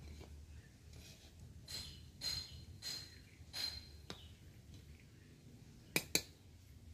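A metal spatula scraping and clinking against an iron kadai while badusha fry in oil: a few short ringing scrapes, then two sharp clinks close together about six seconds in.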